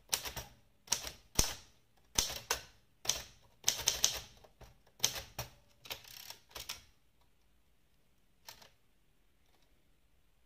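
Keys of an Adler abc 5000 typewriter being typed, sharp strikes coming in quick clusters for about seven seconds, then one more strike a little later.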